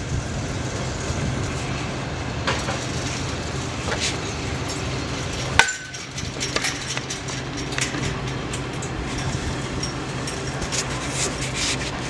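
A car engine idling as the car creeps forward, a steady low hum, with scattered light clicks and knocks and one sharp click about halfway through.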